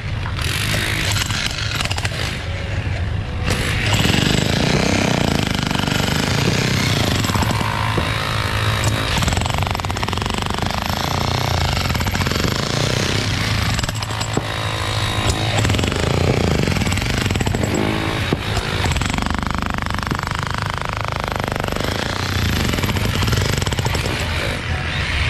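Corded Makita electric demolition hammer running continuously, its chisel bit hammering into and breaking up concrete curb and rubble.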